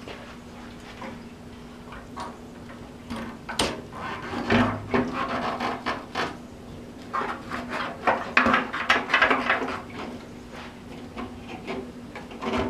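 Fuel tank of a 1977 Yamaha RD400 being set back onto the frame and worked into place by hand: rubbing, scraping and knocking, in two busy spells around the middle, over a faint steady hum.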